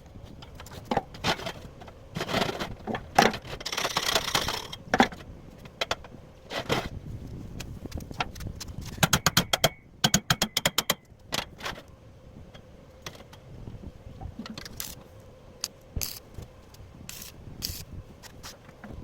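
Light metal clinks and knocks with a scrape about four seconds in and a quick run of small clicks around nine seconds in, the sound of metal parts being handled.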